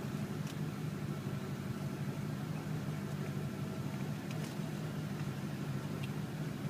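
Car engine idling steadily, a low hum heard from inside the cabin, with a few faint clicks.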